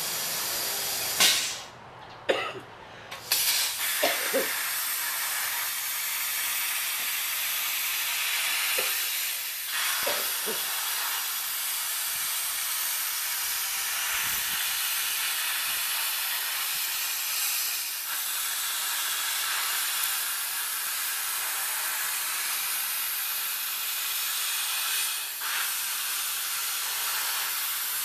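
CNC plasma torch cutting 6 mm mild steel plate at 40 amps: a loud, steady hiss of the arc and its air jet. A few sharp pops and short bursts in the first four seconds, before the hiss settles in.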